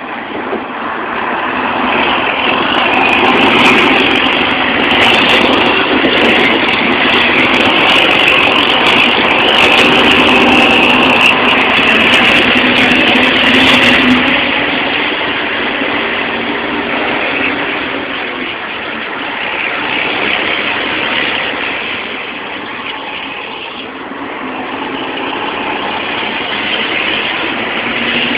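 Scania 113H truck's 11-litre inline-six diesel running loud through a straight-through exhaust. It grows louder over the first few seconds, is strongest until about halfway, then eases off somewhat and rises and falls.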